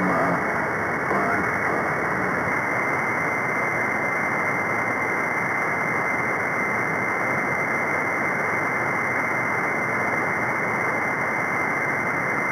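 Radio receiver static: a steady hiss through a narrow single-sideband audio passband on the 11-metre freeband, with a faint steady whistle tone coming in about two and a half seconds in.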